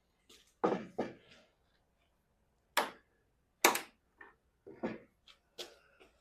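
Pipe clamps being loosened and taken off after a glue-up: a series of separate metal clicks and knocks, the two sharpest a little before and after the middle.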